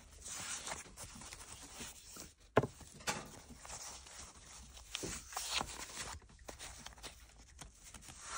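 Paper sleeves of old 78 rpm gramophone records rustling and sliding against each other as a stack is leafed through, with a sharp knock about two and a half seconds in.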